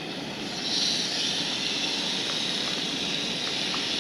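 Marinated pork chops sizzling on a hot propane camp-stove grill as they are laid on; the sizzle swells about a second in and then holds steady, with a few light clicks of the tongs.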